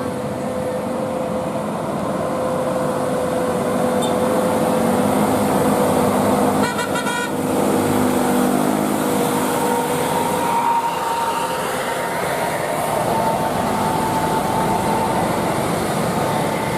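Heavy road-vehicle engine and traffic noise, steady and loud, with a brief horn sound about seven seconds in.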